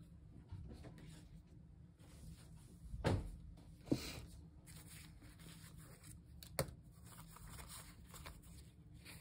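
Planner supplies being handled on a desk: quiet rustling and handling broken by three sharp knocks, at about three, four and six and a half seconds in.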